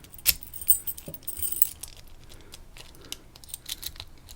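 Metal keys jingling and clicking against a small dimple lock as it is handled: several sharp clicks with a bright jingle in the first second and a half, then lighter scattered ticks.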